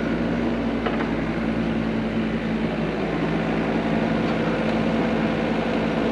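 Engine of heavy equipment running steadily at an even speed.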